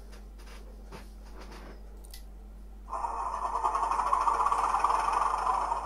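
A few faint mouse clicks, then about three seconds in a steady diesel engine sound from the model Class 31's DCC sound decoder starts and keeps running, played through its small sugar-cube speaker.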